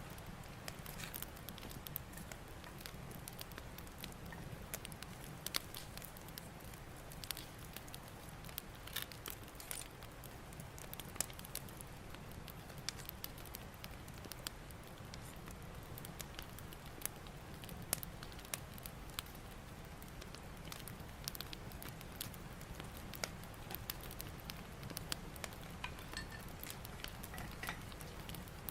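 Wood campfire burning, with a steady low rumble and frequent sharp, irregular crackles and pops.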